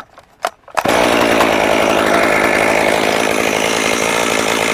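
Stihl MS 201T two-stroke chainsaw being pull-started: a quick pull of the starter cord, then the engine catches under a second in and runs steadily.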